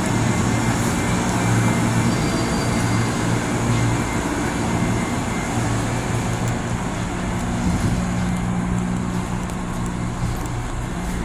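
Electric commuter train's steady hum and rumble, with a constant low drone running under a broad noise. The upper hiss drops back a little after about eight seconds.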